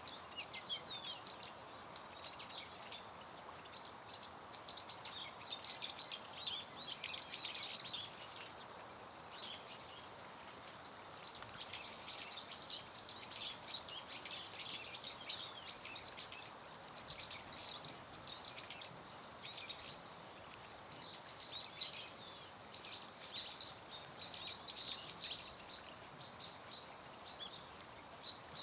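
A flock of Bohemian waxwings giving many short, thin, high trilled calls that overlap in bursts, over a steady hiss of wind and rain.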